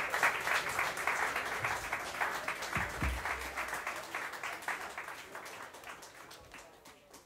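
Audience applauding after a tune ends, loudest at the start and fading steadily away. A dull low thump about three seconds in.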